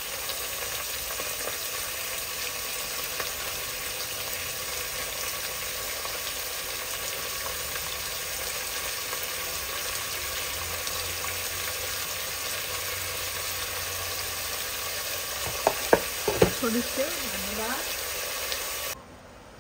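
Goat meat and onions sizzling and crackling steadily in hot oil in a pressure cooker. A few sharp knocks come near the end, and the sizzling cuts off suddenly just before the end.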